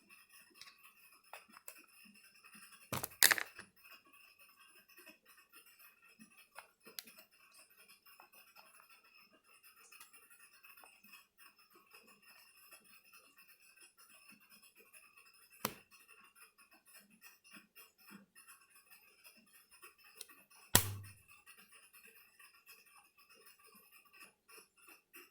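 Small sharp clicks and taps from handling a laptop's parts and tiny screws: a loud pair about three seconds in, a lighter click later, and a loud knock with a dull thump about twenty-one seconds in. A faint steady high whine runs underneath.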